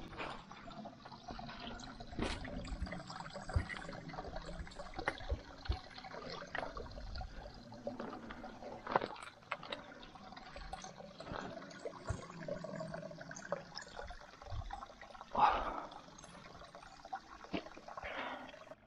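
Footsteps crunching and scuffing over loose rocks, gravel and dry leaves, with irregular knocks of stones underfoot. There is a louder scrape about two-thirds of the way in.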